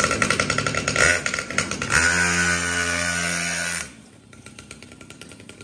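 Mini superbike (pocket bike) engine revving hard, then held at a steady high rev. About four seconds in it drops off sharply to a much quieter level.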